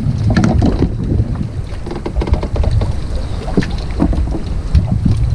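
Strong wind buffeting the microphone with a heavy low rumble, over water lapping against a small wooden boat, with a few short knocks scattered through.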